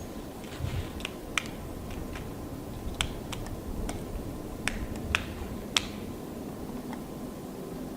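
Black woodpecker pecking and prying bark off a rotten tree trunk: irregular sharp taps and cracks, about a dozen, spaced unevenly.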